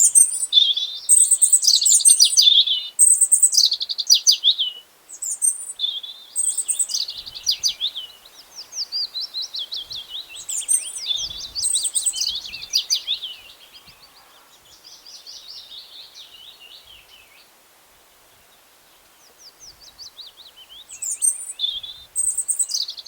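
Small songbirds chirping and trilling in quick, busy phrases, loudest in the first half; the song thins out and stops for a couple of seconds past the middle, then picks up again near the end.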